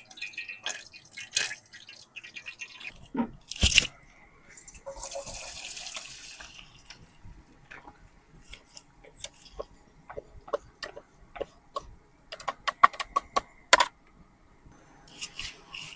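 Cooking at a campfire: scattered light clicks and knocks of utensils against a pot, denser near the end, with a couple of seconds of hissing about five seconds in.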